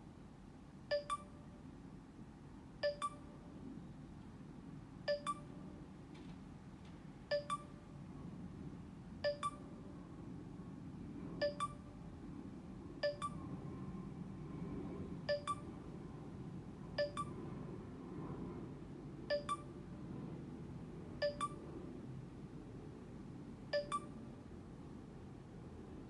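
An Android phone's short charging-connected chime sounding over and over, about every two seconds, each a quick double note. It is the charger connection dropping and reconnecting again and again, the phone's 'hiccups'.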